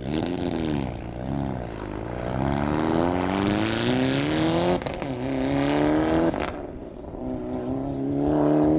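Mitsubishi Lancer Evolution IX's turbocharged 2.0-litre four-cylinder accelerating hard out of a hairpin at full competition pace. The engine note dips twice in the first second or so, then climbs steadily, with sudden drops at gear changes about halfway through and again a little later, before rising once more.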